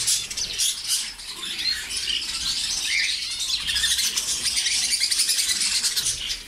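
A crowd of caged budgerigars and canaries chirping and chattering all at once: a dense, continuous, noisy twittering with no pause.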